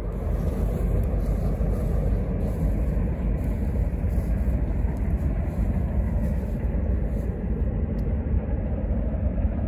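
Wind buffeting the microphone: a steady low rumble with no pauses.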